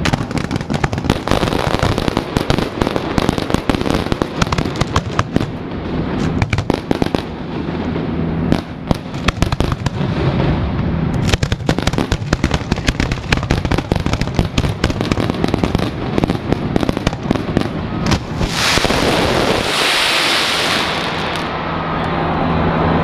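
Fireworks show fired from a barge at close range: a rapid, dense barrage of bursts and reports, then a couple of seconds of hissing near the end.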